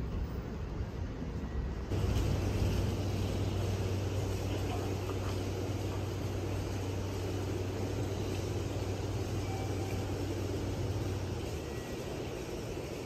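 A train standing at a station platform, running with a steady low hum that sets in about two seconds in and eases off near the end.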